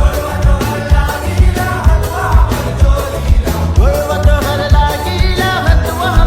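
Devotional song to Shiva: a sung melody over a heavy, pounding electronic bass beat.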